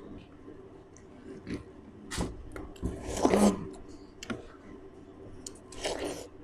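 People eating juicy watermelon slices at speed: a scatter of short wet bites and chewing mouth sounds. The loudest come a little after two seconds and around three seconds in.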